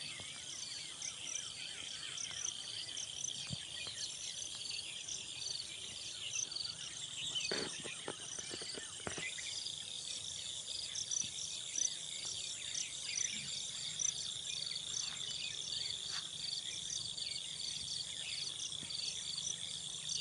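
A dense chorus of insects chirping, a steady high trill with evenly repeating pulses above it. A few soft knocks sound about eight to nine seconds in.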